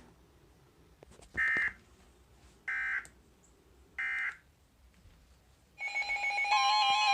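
Three short, identical buzzy data bursts of an EAS/SAME end-of-message (EOM) code, about a second apart, marking the end of the warning broadcast. Keyboard music with steady chiming tones starts near the end.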